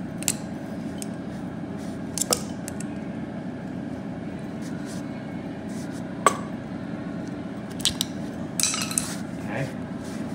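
Scattered sharp metallic clicks and light scrapes of a steel pick working against the chrome brass body of a Sloan flushometer valve as an O-ring is pried off its handle connection. The loudest click comes about six seconds in and a brief run of scraping near the end, over a steady low hum.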